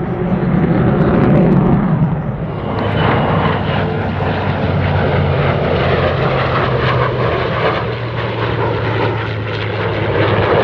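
Fighter jet noise from the F-35A's F135 turbofan, swelling to its loudest in the first two seconds. About two and a half seconds in, the sound changes abruptly to a formation pass of a P-51 Mustang and the F-35A: the Mustang's Merlin V-12 piston engine and propeller give a steady low drone under the jet noise.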